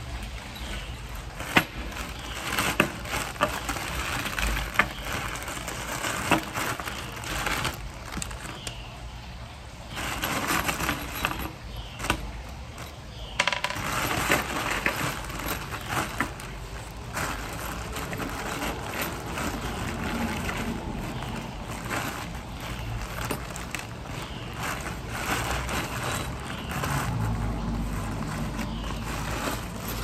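Plastic hardware bags of screws and wall anchors crinkling, with sharp small clicks and clinks of the metal hardware being handled.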